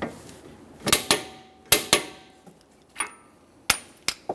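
Click-type torque wrench and socket on a CV axle nut: a handful of sharp metallic clicks and clinks, a couple with a brief ring, as the nut is brought to its 217 ft-lb setting and the wrench and socket come off.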